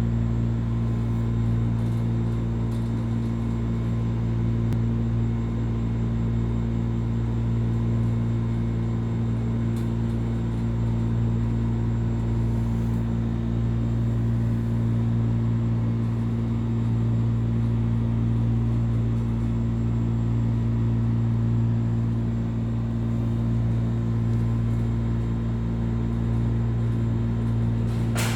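A steady low hum with several constant pitched tones, and one sharp click near the end.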